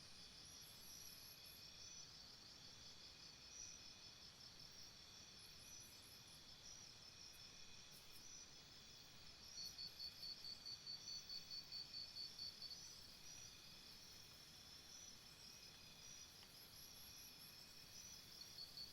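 Jungle insects chirring in several layered, steady high-pitched pulsing choruses, faint overall. In the middle, one fast, louder chirp runs at about seven pulses a second for roughly three seconds.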